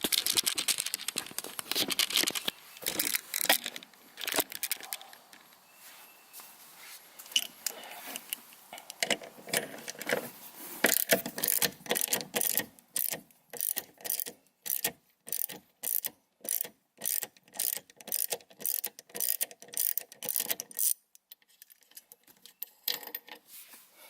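Ratchet wrench with a 13 mm socket undoing nuts: irregular metallic clatter at first, then a long run of evenly spaced pawl clicks as the ratchet is swung back and forth, which stops a few seconds before the end.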